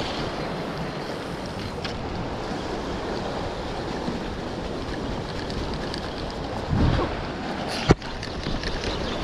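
Ocean surf washing over rocks, with wind buffeting the microphone and a surge of water about seven seconds in. A single sharp knock just before the end.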